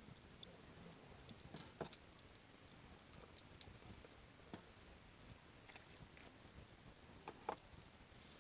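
Softwood campfire burning quietly, with faint scattered crackles and sharp pops. The loudest pops come about two seconds in and again near the end.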